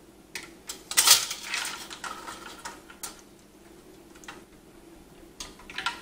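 Scattered clicks and light clatter as a fan is fitted into the middle of a dual-tower CPU heatsink, its frame and rubber mounts being handled against the fins. The loudest rustling scrape comes about a second in, and a few more clicks follow near the end.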